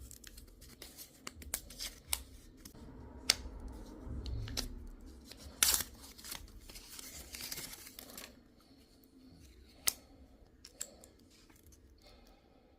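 Camera packaging being handled and opened by hand: scattered clicks and taps of plastic and cardboard, with a louder tearing and rustling stretch about six to eight seconds in.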